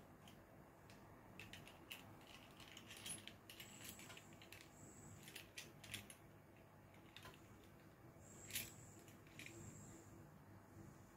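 Near silence: room tone with faint scattered clicks and light rattles, and one sharper click about eight and a half seconds in.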